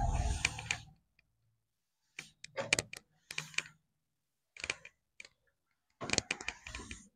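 Blackboard duster rubbing across a chalkboard in several bursts of quick scrubbing strokes, with short pauses between.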